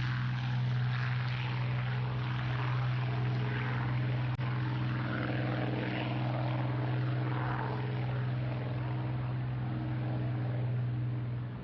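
Hawker Hurricane's Rolls-Royce Merlin V12 engine and propeller running at a steady, unchanging pitch, with one brief click about four and a half seconds in.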